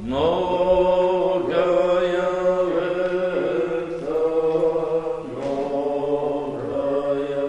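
Eastern Orthodox liturgical chant from a panikhida (memorial service): sung voices holding long notes that step to new pitches every second or two.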